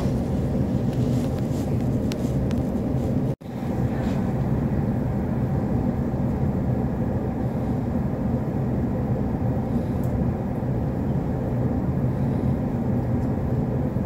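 Steady hum and hiss inside a stopped electric commuter train car, its onboard equipment running while the train stands still. A brief dropout at an edit about three and a half seconds in.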